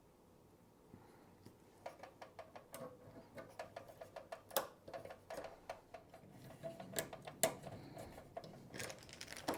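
Small plastic parts and wires being handled: irregular light clicks and rattles, a few a second, starting about two seconds in and growing a little louder toward the end.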